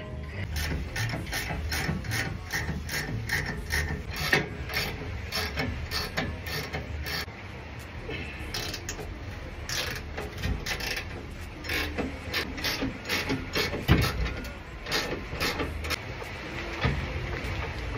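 Ratchet wrench clicking in quick, regular strokes of about three a second as bumper-bracket bolts on a Ford F-150 are loosened, turning irregular later, with a few metal knocks, the loudest about fourteen seconds in.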